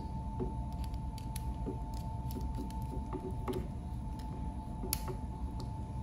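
Small scattered clicks and creaks of a screwdriver working the terminal screw of a plastic push-button switch, with the wire and switch handled. A steady faint hum runs underneath.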